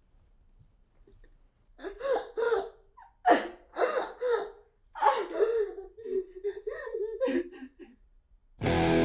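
A woman sobbing: broken, gasping cries in short bursts, running into a long wavering wail. An electric guitar comes in just before the end.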